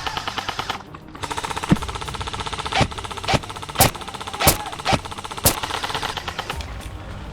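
Airsoft guns firing on full auto: a short burst, then after a brief pause a long stretch of rapid, even clicking fire, with several louder sharp cracks on top.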